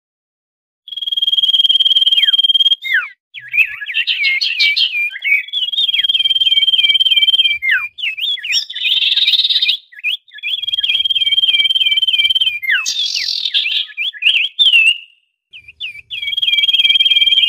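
Common iora calls: a long, steady, high whistle held for about two seconds with short dropping notes, then a burst of fast twittering chatter. The whistle-and-chatter cycle repeats several times, starting about a second in. This is the noisy ('ribut') call sequence used as a trapping lure.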